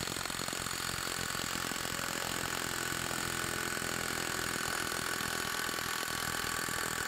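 SeeSii cordless impact wrench hammering continuously in reverse at full trigger on a torque-test rig, a rapid, steady stream of hammer blows with a metallic ring. It is running a ten-second maximum-torque test against a joint that does not turn, the torque climbing throughout.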